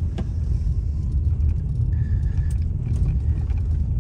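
Steady low rumble of a car driving slowly on a snowy road, heard from inside the vehicle, with a click just after the start and a short beep about halfway through.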